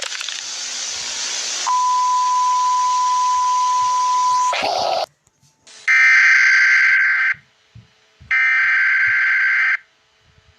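Television static hiss, joined a couple of seconds in by a steady high beep tone. Both cut off suddenly about four and a half seconds in. After a moment of silence come two harsh electronic data bursts, each about a second and a half long, like the coded header tones that open an emergency alert broadcast.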